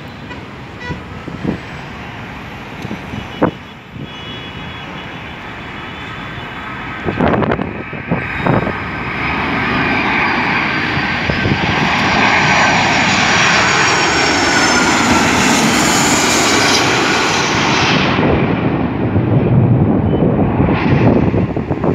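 Boeing 757-300 jet airliner on landing approach passing low overhead. The engine noise builds over several seconds to a loud peak, with a high whine that falls in pitch as it goes by, then leaves a deeper rumble as it moves away.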